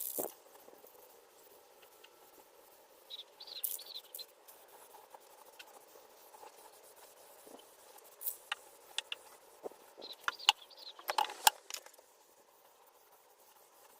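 Faint scattered clicks, taps and short scraping handling noises from work with tools and materials, a few brief hissy scrapes about three to four seconds in and a cluster of sharp taps toward the end.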